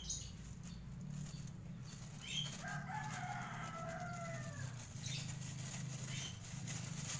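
A rooster crowing once, about three seconds in, a single held call of about two seconds, over a steady low hum and the rustle of a plastic bag being handled.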